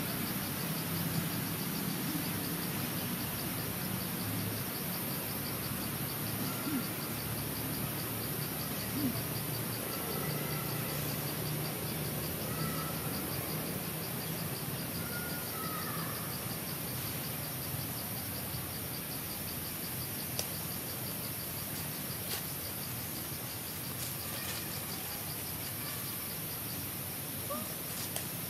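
Forest insects: a steady high-pitched drone, with a fast, even pulsing trill over it that fades out about halfway through. A few short bird chirps come through in the middle, along with scattered faint clicks.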